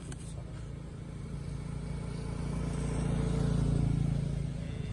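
A motor vehicle's engine passing by, a low steady hum that grows louder to a peak about three-quarters of the way through, then fades.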